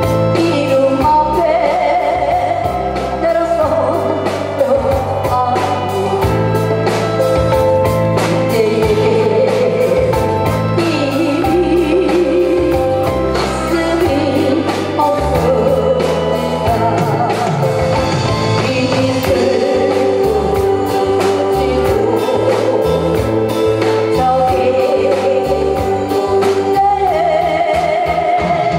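A woman singing live into a microphone through a PA, over a band backing with a steady beat and acoustic guitar.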